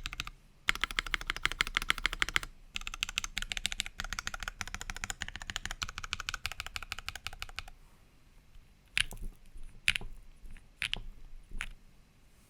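Typing on a Prophet mechanical keyboard with lubed budget 'Creampaca' linear switches (Jwick housings, Kailh Pro Burgundy stems) on a polypropylene plate, with CRP Tulip keycaps. Two runs of fast typing with a short break between, then four separate keystrokes about a second apart near the end.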